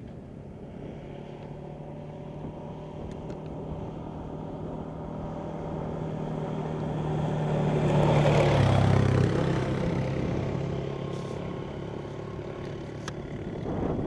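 Quad bike (ATV) engine running as it approaches, growing louder, passes close about eight seconds in with a drop in pitch, then fades as it moves off; it grows louder again near the end.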